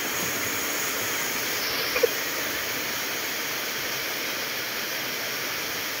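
Steady rush of water cascading over rocks in a stream and waterfall, with one short sharp sound about two seconds in.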